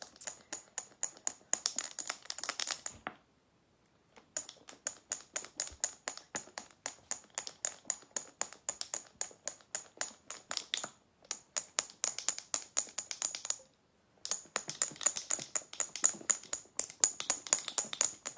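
Two marbles clacking inside a jar of cream as it is shaken hard, a fast even rattle of about five knocks a second that stops twice briefly. The cream is being churned toward butter and is only just starting to thicken.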